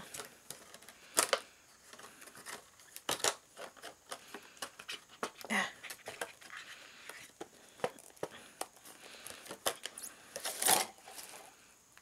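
Clear plastic packaging crinkling and crackling as it is peeled open and handled, in irregular rustles with a few sharper snaps.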